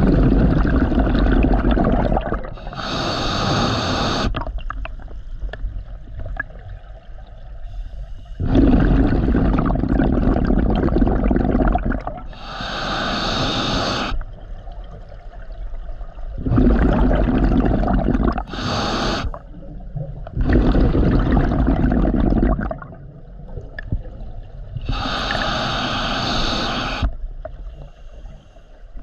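Scuba diver breathing through a regulator underwater: short hissing inhales alternate with longer, low bubbling exhales, about four breaths in all.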